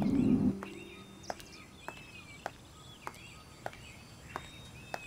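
Plucked harp music fades out in the first half second, leaving birds chirping over an outdoor background. Light ticks come at an even pace, about every 0.6 s.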